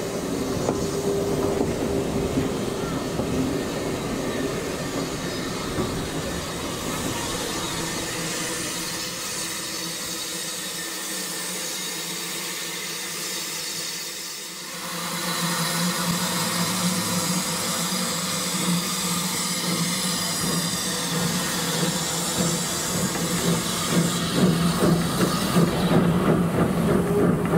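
Standard-gauge passenger coach rolling along the track, heard from the carriage window: continuous wheel-and-rail rumble. A steady low tone joins about halfway, and the running grows louder near the end, with regular clicks of the wheels over the rail joints.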